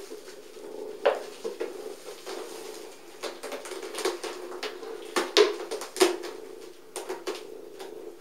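A cat's claws and paws clicking and scuffing on a sisal scratching post and carpet as she bats at a hanging toy: about half a dozen short, sharp knocks at irregular intervals, the loudest two near the end, over a steady low drone.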